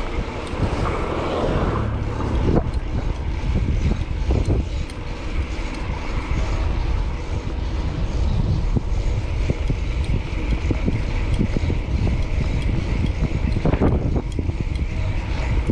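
Wind rushing over the microphone of a moving bicycle, with city traffic going by.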